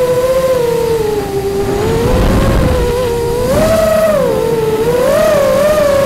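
Quadcopter drone's motors and propellers whining steadily, heard through a camera mounted on the drone. The pitch sags a little, then rises sharply about halfway through and wobbles up and down near the end as the throttle changes.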